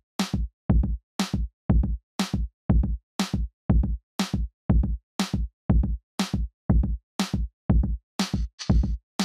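Background music with a steady beat: short low thumps topped by a higher tick, about two a second, with brief silences between them.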